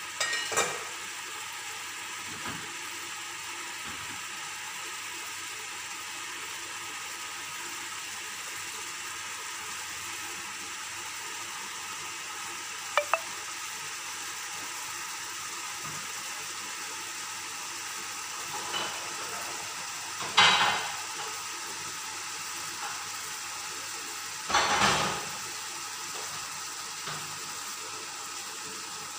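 Chicken breast simmering in liquid in an aluminium frying pan, a steady bubbling, sizzling hiss. A few brief louder pops or knocks break in: one near the start, a quick double click about halfway, and two stronger ones later on.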